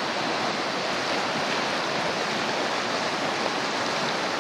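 Fast, turbulent river current rushing steadily over a riffle.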